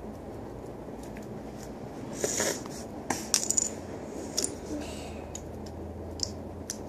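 Plastic Lego bricks clicking and clinking as they are handled and fitted together, a cluster of sharp clicks about two to three and a half seconds in and a few single clicks later.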